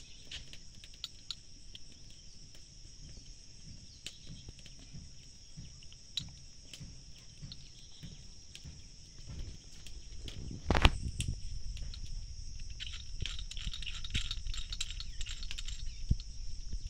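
Small clicks, rustles and handling noises of thread seal tape being wrapped onto a water tank tap's threaded fitting, with one sharp knock about eleven seconds in. Under it runs a steady high-pitched insect chirring.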